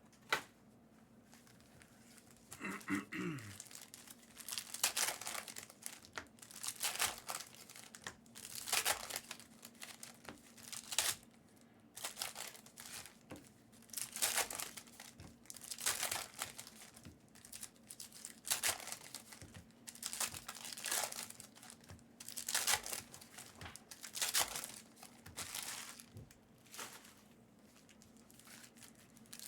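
Packs of Panini Optic football cards being torn open by hand, with a crinkling rip of the pack wrappers every second or two, over a faint steady hum.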